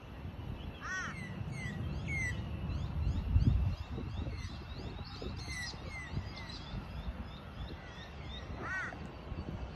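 Several birds calling: quick chirps and sweeping whistled notes, with a harsher call about a second in and again near the end. Uneven low wind rumble on the microphone underneath.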